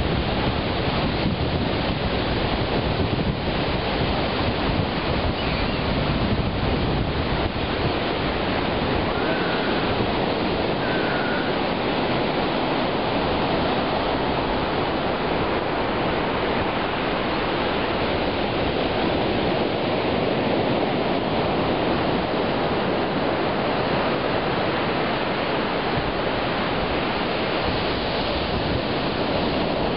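Ocean surf breaking and washing up a sand beach, a steady rushing noise, with wind buffeting the microphone more strongly in the first several seconds.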